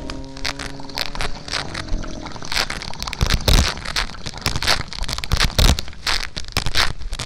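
Close-miked wet mouth sounds: lips smacking and the tongue clicking, an irregular run of sharp little clicks and crackles.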